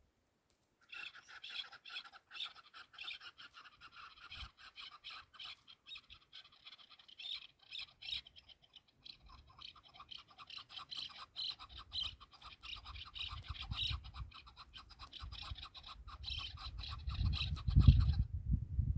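Chukar partridge calling: a long run of rapid, chattering notes that starts about a second in and stops shortly before the end. A low rumble builds in the second half and is loudest near the end.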